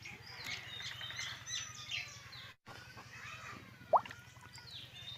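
Faint birds chirping over a low steady background hum, with one short, louder rising note about four seconds in.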